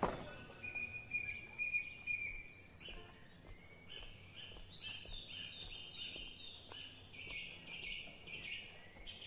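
Small birds chirping outdoors: one held high call early on, then a busy run of short repeated chirps. A heavy wooden gate door shuts with a single sharp knock at the very start.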